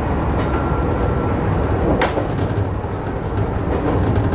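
Izu-Hakone Railway Sunzu Line electric train running, heard from the driver's cab: a steady rumble of wheels on rail, with one sharp click about two seconds in and a few lighter clicks near the end. The sound starts and cuts off suddenly.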